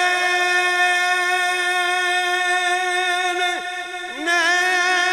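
A man's voice holding a long, steady sung note through a PA system with heavy echo. The note drops away briefly about three and a half seconds in, then comes back.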